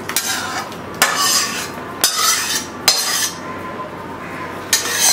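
Spatula scraping potato curry out of a metal kadai into a ceramic bowl. Five strokes come about a second apart, each a sharp knock followed by a short scrape.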